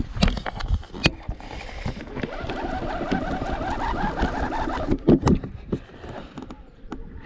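Baitcasting reel being cranked: a fast, even whirr of the reel's gears for a few seconds, with sharp knocks and bumps from the rod being handled before and after it.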